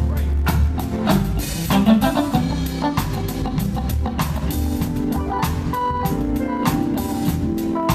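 A band playing: a drum kit keeps a steady beat over bass, with guitar and organ tones.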